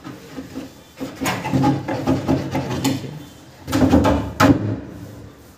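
Plywood panel being slid and set down onto a wooden sofa frame: wood scraping on wood, with several knocks, the loudest about four seconds in.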